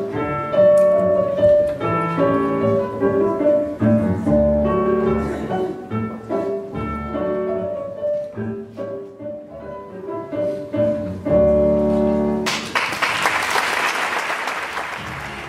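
Classical piano music for a ballet piece, playing until about twelve and a half seconds in, when it stops and the audience breaks into applause.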